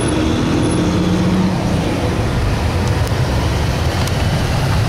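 Motor vehicle driving: steady engine and road noise, with a low engine hum most distinct in the first second or so.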